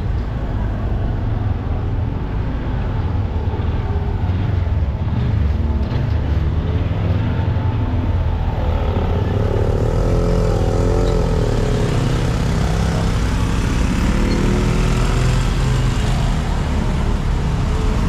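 Road traffic passing close by, with a steady low rumble of vehicle engines; one engine's note stands out and wavers in pitch for a few seconds in the middle.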